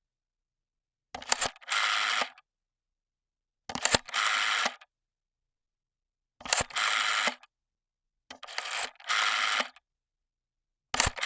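Vintage rotary telephone dial being dialled, four times in turn and a fifth starting near the end. Each dial begins with a few sharp clicks as the dial is wound round, then a buzzing whirr of about a second as it spins back to rest.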